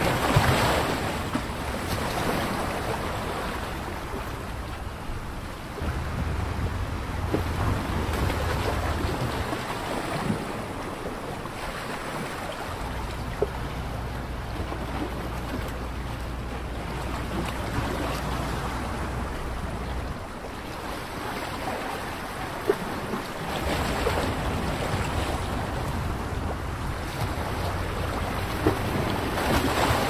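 Wind blowing on the microphone: a steady rushing noise with a low rumble that comes and goes in gusts.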